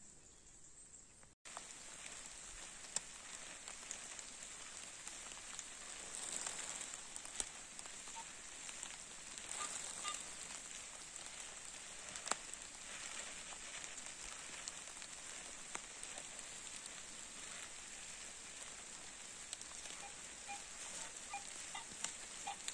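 Rain falling steadily in a forest: an even hiss with many small ticks of drops, coming in abruptly about a second and a half in.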